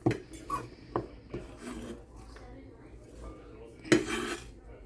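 Diced celery being scraped off a cutting board into a bowl with a knife: rasping scrapes mixed with a few knocks of the knife and bowl, the loudest scrape near the end.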